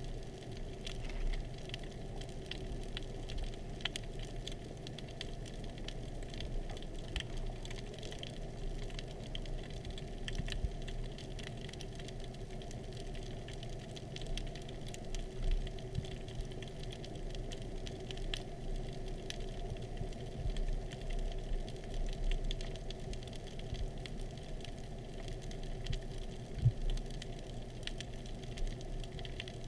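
Underwater ambience heard through a waterproof camera housing: a steady low hum with a constant faint tone, peppered with scattered small clicks and crackles, and a few louder ticks.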